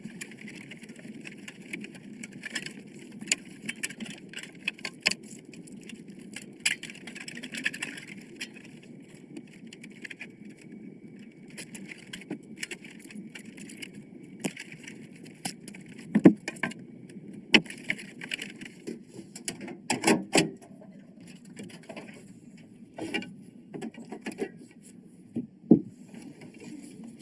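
Irregular small clicks and knocks, a few louder ones in the second half, over a steady low noise.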